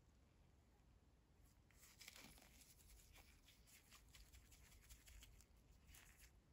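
Faint hiss of a fine-mist spray bottle spraying soapy water onto plant leaves: several short sprays, the clearest about two seconds in.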